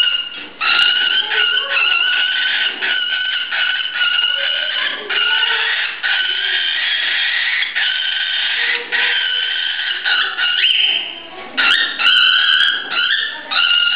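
Adult cockatiel giving its quarrel and fear call, the call adults make in a serious fight or when grabbed. A loud, near-continuous call broken into pieces about a second long, with short breaks about half a second in and near the end.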